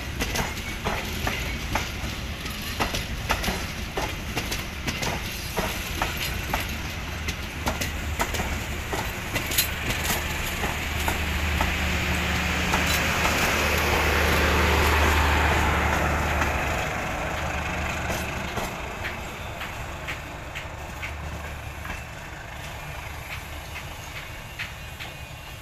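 Passenger coaches of a KAI local train passing close by, wheels clicking over the rail joints. A rushing noise and a steady low hum swell to a peak about halfway through, then fade as the tail of the train pulls away.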